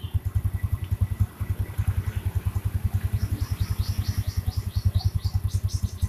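Yamaha Jupiter Z's 110 cc single-cylinder four-stroke engine idling with a steady, even beat while it warms up after new clutch plates were fitted; the clutch area now sounds fine ('area kopling aman').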